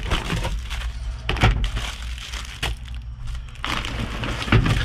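Plastic food packaging rustling and crinkling as it is handled, with a few sharp knocks, over a steady low hum.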